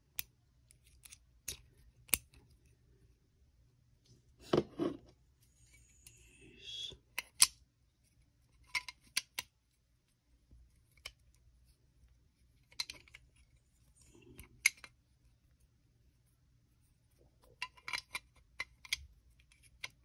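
Scattered small metallic clicks and taps from a North American Arms .22 mini-revolver and its metal belt-buckle holder being handled, some in quick clusters, with a brief scrape about six seconds in.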